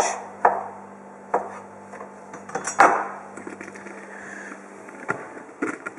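Chef's knife chopping smoked sausage into small cubes on a cutting board: a handful of sharp knocks at uneven intervals, the loudest about three seconds in, with a few quieter knocks near the end.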